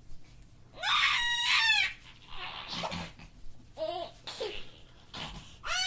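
A young child's high-pitched squealing laughter: one long shriek about a second in, breathy giggles after it, and another short squeal near the end.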